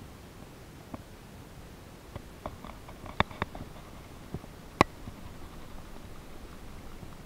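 Handling noise from fishing gear right at the microphone: a few scattered sharp clicks and taps, the sharpest about five seconds in, over a steady low hiss.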